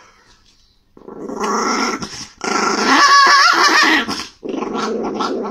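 Long-haired chihuahua growling angrily. The growl starts about a second in and runs in three stretches with short breaks, loudest in the middle.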